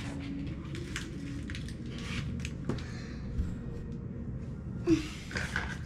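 Small plastic toy pieces and wrapper packets being handled on a countertop: scattered light clicks and rustles, with one brief louder sound about five seconds in.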